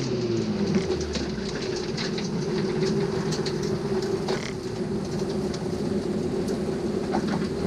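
Small race car heard from inside the cabin, its engine revs falling as it slows and then running low and steady as the car rolls along. Light rattles and clicks come from the cabin throughout.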